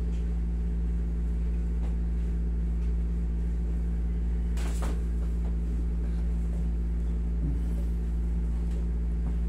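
Steady mechanical hum of a running window-type air conditioner, with one short sharp sound about halfway through.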